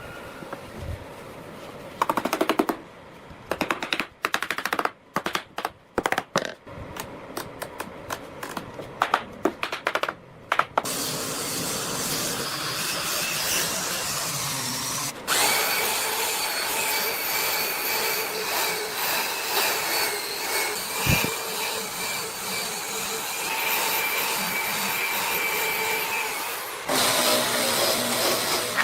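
A power tool worked on wood: first a string of short, irregular bursts, then running steadily for about fifteen seconds, with a change in its sound near the end.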